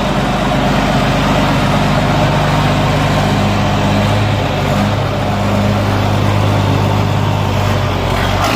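John Deere 4440 tractor's diesel engine running steadily, then cutting off abruptly at the very end.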